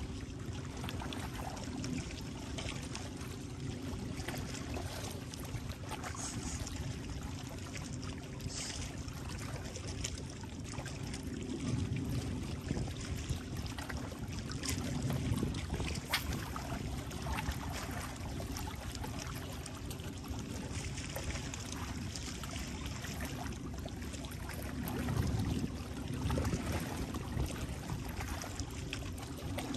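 Seawater lapping and trickling, with a steady low rumble underneath.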